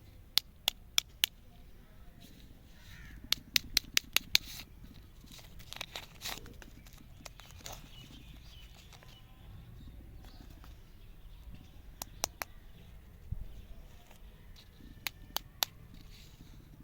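Sharp plastic clicks in quick runs of four to six, with some rustling of wrapping in between, as candy packaging is handled and unpacked.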